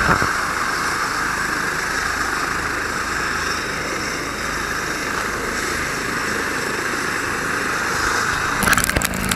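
Eurocopter EC135 helicopter running on the ground with its rotors turning: a steady turbine and rotor noise with a strong whine in the mid range. Near the end it gives way abruptly to louder, choppier noise.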